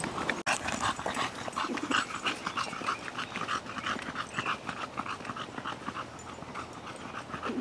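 A bulldog panting fast and rhythmically, about four breaths a second: the heavy panting of a dog worn out by the heat.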